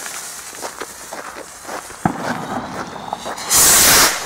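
24-shot firework battery going off: fizzing and crackling with scattered sharp pops, then a loud hissing shot about three and a half seconds in.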